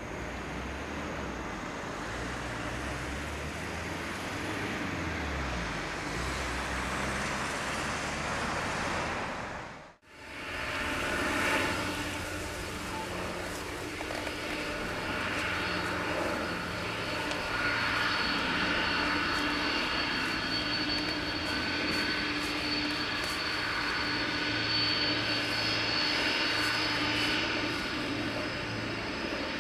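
Boeing 747-400 freighter's four turbofan engines running at low taxi power: a steady jet whine over a rumbling drone. The sound drops out briefly about ten seconds in, then comes back closer, with several high, steady whining tones over the rumble.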